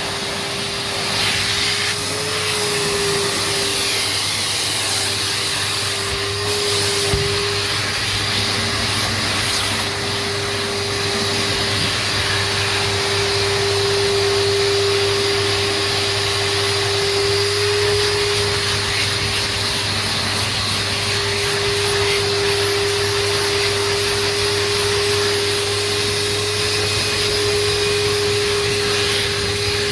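Numatic NTD570 vacuum cleaner running steadily, a constant rushing of air under a whine that rises and dips slightly now and then.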